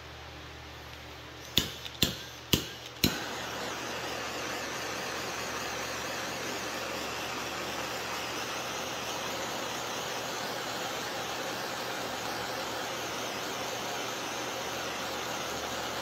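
Handheld gas torch: its igniter clicks four times about a second and a half in, the flame catching on the fourth click, then a steady hiss of the burning flame as it shrinks heat-shrink tubing on a battery cable.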